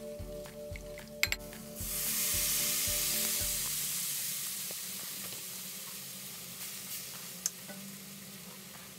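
Food sizzling in a hot pan: the sizzle starts suddenly about two seconds in and slowly dies down. Background music with a beat plays under the first few seconds.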